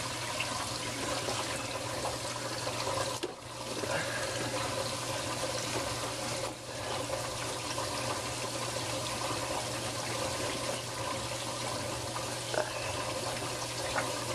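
Steady rush and splash of water running through a reef aquarium's sump and scrubber plumbing, over a low steady hum.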